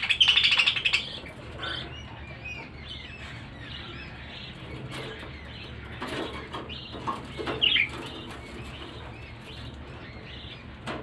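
Budgerigars chirping and chattering: many short warbling chirps, with a loud burst of chatter in the first second and another loud cluster of calls near the end of the eighth second.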